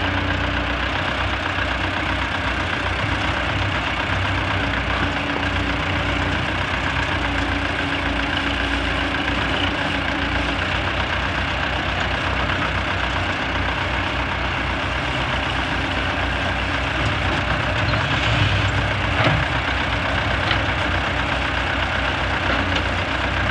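Diesel engines of YuMZ EO-2621 tractor excavator-loaders running steadily while the hydraulic backhoe and front loader work. The engine note swells briefly near the end, with one sharp clunk.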